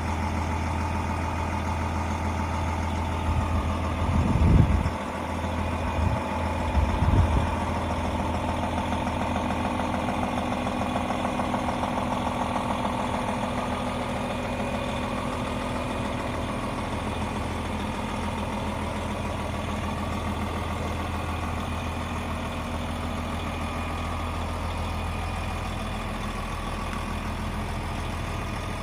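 DAF XG 480 truck's PACCAR MX-13 straight-six diesel idling steadily, with a few short low thumps about four to seven seconds in.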